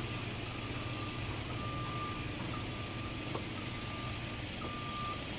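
Reversing beeper sounding a single-pitch beep about once a second over the low, steady hum of a pickup truck's engine as it backs a boat trailer down the ramp.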